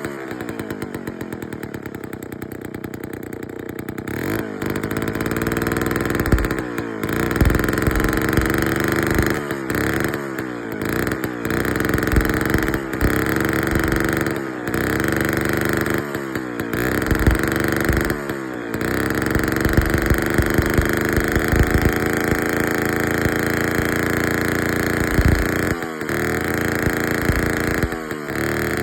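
Vintage McCulloch 549 two-stroke chainsaw running on its first start after years in storage. It idles at first, then is revved up to a high steady pitch and let fall back again and again. It runs, though the owner says the carburettor needs cleaning.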